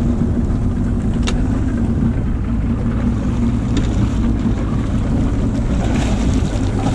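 Boat's outboard motor idling with a steady low hum under wind rumble on the microphone. A single sharp click about a second in, and water splashing near the end as a hooked snapper thrashes beside the hull.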